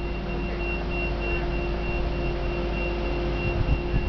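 A crane's engine running steadily while it holds a sailboat in lifting slings, with a high-pitched warning beep repeating over the drone.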